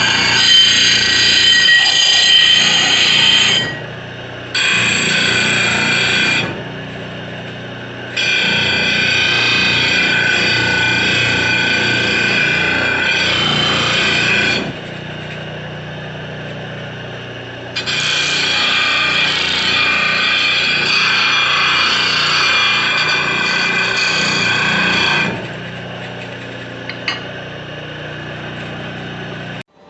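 Treadmill-motor-driven bench drill press running steadily, with four spells of much louder, higher-pitched cutting noise as the bit is fed into the work, the longest lasting about seven seconds. Between spells only the motor's lower running sound remains. The sound cuts off abruptly just before the end.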